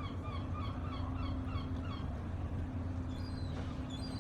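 Large harbour ambience: a steady low rumble of engines and machinery with a constant hum. Over it comes a quick series of short bird calls, several a second, for the first half or so, and a few higher chirps near the end.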